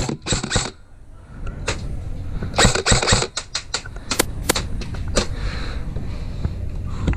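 Airsoft guns firing: scattered sharp snaps and clacks, with a quick cluster of several shots about three seconds in.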